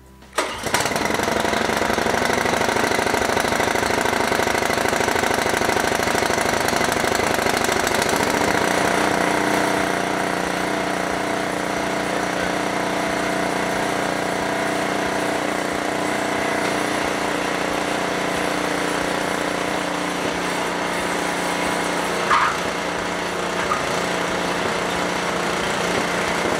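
Husqvarna ST124 snowblower's single-cylinder four-stroke engine on a cold start with the choke closed: it catches about half a second in and then runs steadily. There is one brief sharp sound about 22 seconds in.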